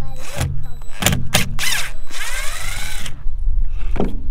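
Cordless drill driving screws into old weathered wood: a few short runs, then a longer run about two seconds in.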